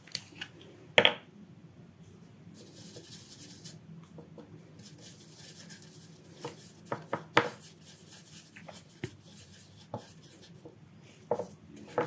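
Paintbrush mixing gouache in a plastic palette: light clicks, taps and scrapes of the brush against the palette wells. There is a sharp click about a second in, a cluster of taps in the middle and a few more near the end.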